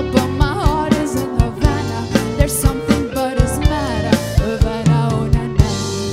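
A live band plays a pop song's closing bars, with drum kit, keyboard, guitar and violin under a woman singing. About five and a half seconds in the drum beat stops and the final chord rings on, starting to fade.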